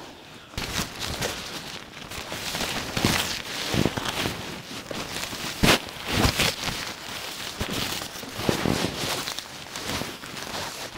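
Irregular rustling, scuffs and short knocks of a person moving about and handling gear, with no steady sound underneath.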